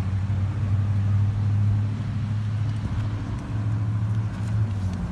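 A steady low machine hum, loudest about a second in and easing near the end.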